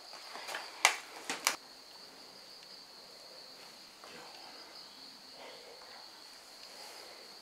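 A few sharp taps in the first second and a half, then an insect's steady, high-pitched trill.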